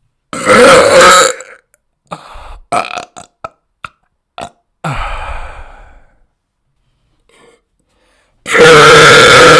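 Loud human burps brought on by drinking Monster energy drink. There is a long burp about half a second in, a few short small sounds between two and four seconds, a burp near five seconds that fades away, and another long, loud burp starting near the end.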